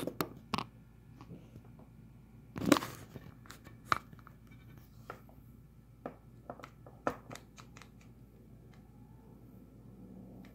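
A plastic wrestling action figure being handled and posed by hand: scattered small clicks and knocks from its plastic joints and parts, with one louder short rustle about three seconds in.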